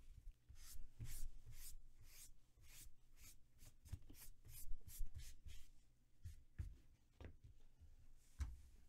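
Hands handling sports trading cards and their packaging: a run of soft, irregular rustling and sliding strokes, about two or three a second.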